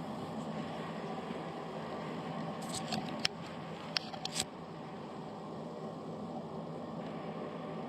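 Steady room noise with a hum, and a few short light clicks and taps between about two and a half and four and a half seconds in.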